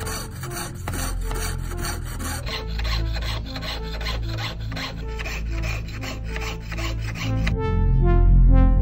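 Jeweler's piercing saw cutting through a thin metal plate in quick, even back-and-forth strokes, with background music underneath. The sawing stops about three-quarters of the way in and the music grows louder.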